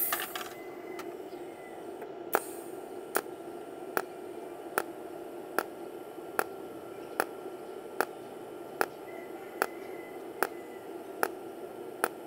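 Tenya TIG250PC welder's arc in cold TIG mode, firing automatic short pulses: a sharp tick a little more often than once a second, evenly spaced, starting about two seconds in, over a steady hum. Each tick is one arc pulse laying a weld spot. A short noisy burst comes right at the start.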